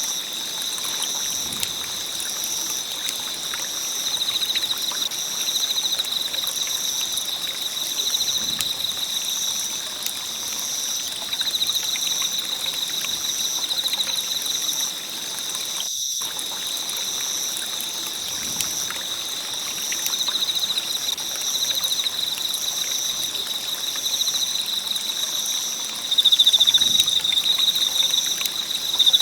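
A wood fire crackling with small pops over a steady hiss, against continuous high insect chirring in two bands, one pulsing about once a second. About halfway through, the fire sound cuts out for a moment.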